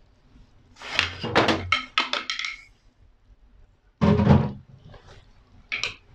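A quick series of knocks and clatters from a wooden spatula and a plastic bowl against the rim of a cooking pot, then a louder thump about four seconds in and one short knock near the end.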